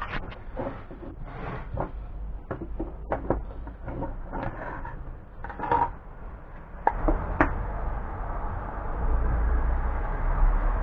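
Small MDF pieces and a plastic glue bottle being picked up and set down on a wooden workbench: a string of light knocks and taps, the sharpest about seven seconds in. A low rumble builds from about eight seconds on.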